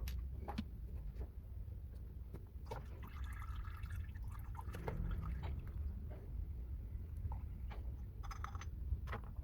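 Engine oil dripping and trickling into a drain pan during an oil change, over a low steady rumble, with scattered light clicks and a couple of brief metallic rings.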